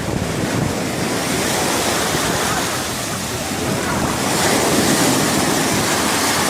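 Sea waves breaking on the shore: a steady rush of surf that grows louder about four seconds in.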